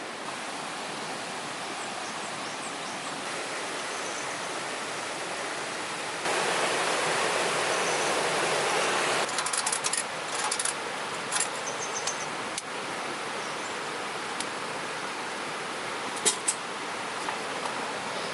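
Steady hiss of heavy rain falling. It grows louder for about three seconds in the middle, followed by a few sharp ticks and taps.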